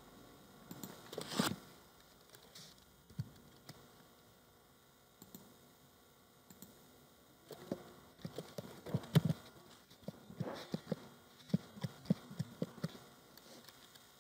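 Typing on a computer keyboard: a quick run of key presses through the second half, after a brief knock and a few clicks about a second in.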